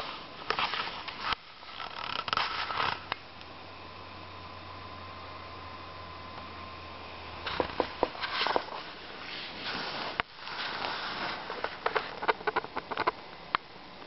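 Close handling noise: irregular rustling and sharp clicks. A quieter stretch from about three to seven seconds in holds only a steady low hum and a faint high tone, and then the clicking and rustling return.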